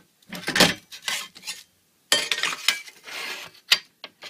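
Metal screed sled (Abziehschlitten) handled and slid on a spirit level: metal knocks and clinks, a scraping rub about two seconds in, and a sharp click near the end.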